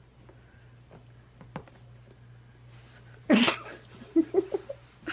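A child bursts out laughing a little over three seconds in, then giggles in short bursts.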